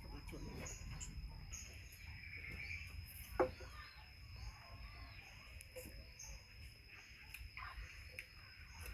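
Insects, crickets or similar, droning in a steady high thin whine, with scattered faint clicks and a sharper knock about three and a half seconds in.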